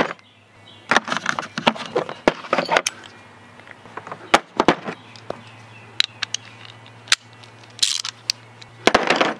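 Chrome steel sockets clinking against each other and the plastic case as they are picked out of a socket set, in scattered sharp clicks, with a quicker run of metal clicks near the end as a socket is fitted onto the ratchet.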